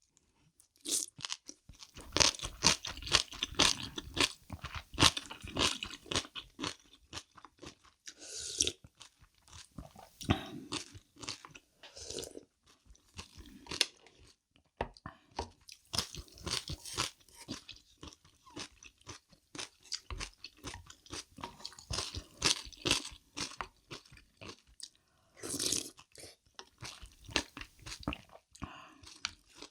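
Close-miked eating of crunchy food: many crisp, irregular crunches with chewing in between, pausing briefly about halfway through.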